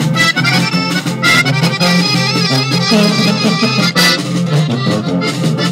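Accordion-led Mexican corrido music playing an instrumental passage between sung verses, over a steady pulsing bass line.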